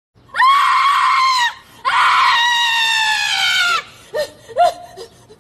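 A woman's high-pitched wailing cry: two long cries, the second sliding slowly down in pitch, then two short sobbing yelps near the end.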